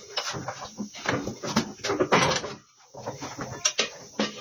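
Car tyre being shifted and handled against a metal tyre spreader: irregular knocks, bumps and rubbing of rubber, with a brief pause about two-thirds of the way through.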